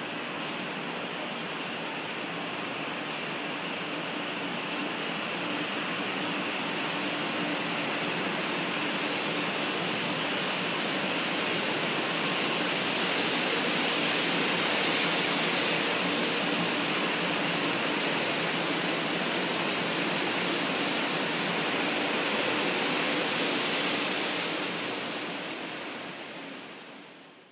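A converted 500-series Shinkansen train pulling out of the station and running along the platform. Its steady rushing running noise grows louder over the first half, then fades as the last car goes by.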